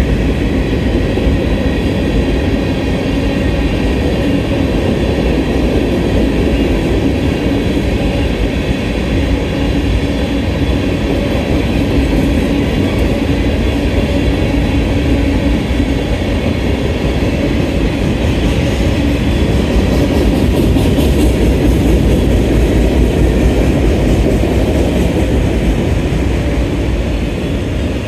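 A Norfolk Southern mixed manifest freight train's cars rolling past: a steady rumble of steel wheels on the rails, with no locomotive in earshot.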